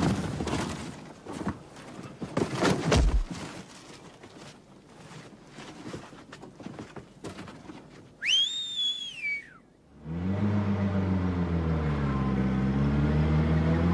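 Several knocks and thuds, then a short whistle that rises and falls about eight seconds in. From about ten seconds a vehicle engine runs steadily.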